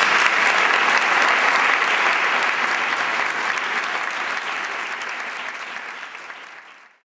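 A roomful of people applauding, a dense steady clapping that fades over the last couple of seconds and then cuts off.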